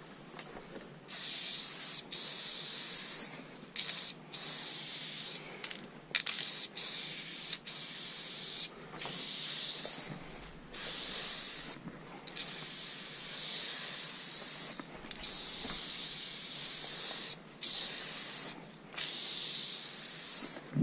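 Aerosol spray paint cans hissing in a long run of separate sprays, some short spurts and some held for a second or two, with brief pauses between.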